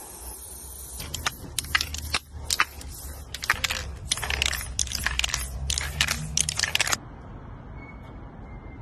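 Aerosol spray paint can hissing in many short, irregular bursts as paint is sprayed onto a wall, stopping about seven seconds in.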